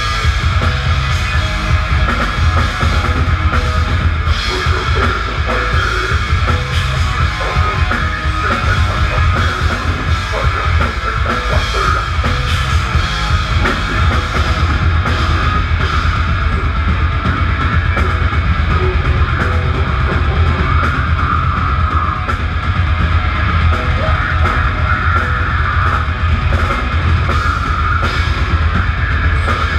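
A rock band playing heavy music live and loud, with electric bass, electric guitar and a drum kit, the drums hitting quickly and without a break.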